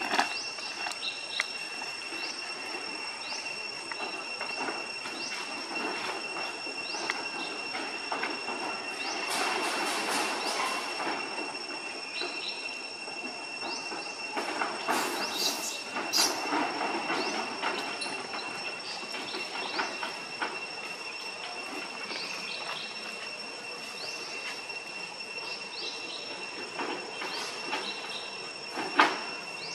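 Insects droning steadily in a high, constant tone, with short high chirps scattered throughout. Two brief rustling noises come in the middle, and a sharp click sounds near the end.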